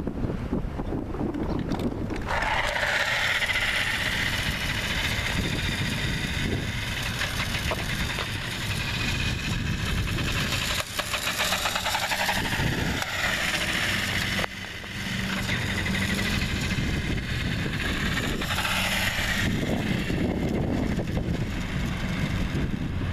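Small electric motor of a vintage Mattel Superstar toy race car whining as the car runs. Its wheels skip and rattle over loose grit on asphalt. The sound starts about two seconds in and fades near the end, with wind rumbling on the microphone throughout.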